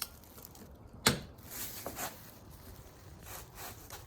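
A 1/2-inch drive torque wrench on a 32 mm socket re-checking the axle nut at 190 ft-lbs gives one sharp click about a second in. Faint scraping and rubbing of the tool being handled comes around the click.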